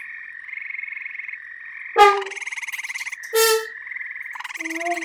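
Prerecorded gray tree frogs giving their steady high trill, with two louder short bursts about two seconds and three and a half seconds in. Near the end a sustained horn note enters beneath the trill.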